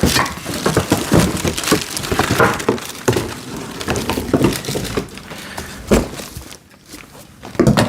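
Packing material being handled while parts are pulled out of a cardboard box: irregular crackling and crinkling with scattered knocks, a sharper one about six seconds in and another near the end.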